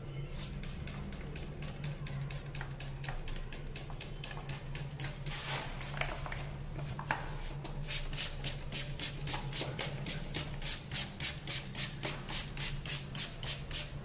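Brush scrubbing cleaning chemical over the rusty stainless-steel inner drum of a top-load washing machine. Irregular rubbing strokes settle about halfway through into quick, even back-and-forth strokes of about three a second, over a low steady hum.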